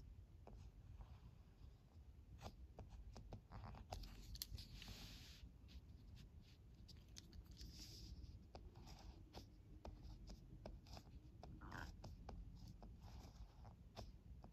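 Ballpoint pen tip scratching faintly across paper as kanji are written by hand: short strokes with small ticks where the tip touches down and lifts off.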